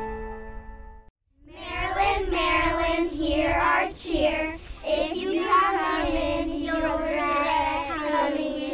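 A group of young girls singing a chant-like cheer together in unison. Before it, the last notes of a music track ring out and cut off about a second in.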